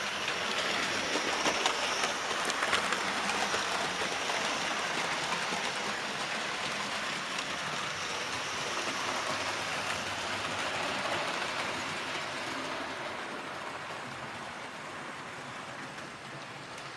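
Model railway train running along the track, heard from a camera truck riding in the train: a steady rushing rattle of small wheels on the rails, easing a little over the last few seconds.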